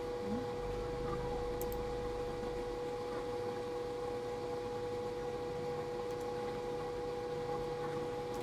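Steady background hiss with a constant hum made of two steady tones: room tone and electrical noise from the recording setup, with no speech.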